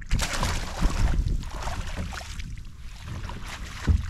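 Wind buffeting the microphone over water, with gear knocking against the plastic fishing kayak as the paddle and landing net are handled; a heavy thump near the end is the loudest sound.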